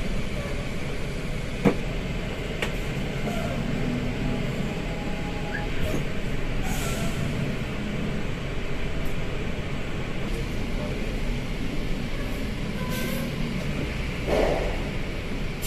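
Steady engine and road rumble heard inside a coach's cabin. A sharp click comes about two seconds in, and a few short hisses follow, the loudest about seven seconds in.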